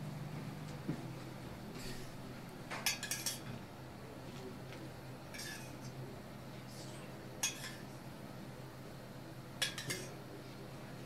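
Metal spoon clinking and scraping against a stainless steel saucepan while scooping out chocolate sauce. The clinks come one at a time a few seconds apart, with a quick cluster about three seconds in and a pair near the end.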